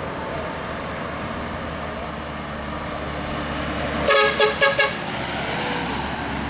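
A passing vehicle's horn sounding about four quick toots in a row about four seconds in, over the steady rumble of road traffic.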